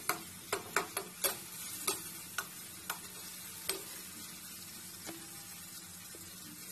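Steel spoon stirring onions and tomatoes frying in oil in a nonstick kadai, clinking against the pan about nine times in the first four seconds over a steady sizzle; after that only the sizzle goes on.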